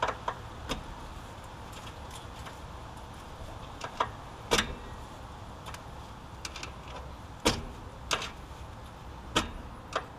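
Hand tools clinking and knocking against metal while a car's front brake drum and hub are taken apart. There are about a dozen sharp, separate clicks, the loudest about four and a half and seven and a half seconds in, over a steady low hum.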